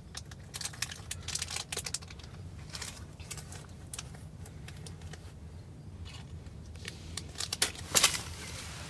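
Scattered small clicks and rustles of handling and movement inside a fabric hunting blind, over a low steady rumble. The clicks come thickest in the first two seconds, and a louder cluster comes about eight seconds in.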